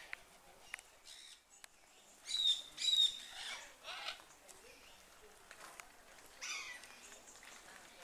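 Parrots calling: scattered short calls, the loudest two close together about two and a half to three seconds in, each with a clear high note.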